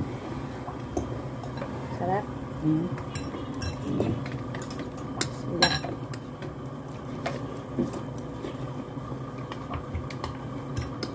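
Metal spoon and fork clinking and scraping against a glass bowl of noodles, in scattered sharp clicks over a faint steady hum.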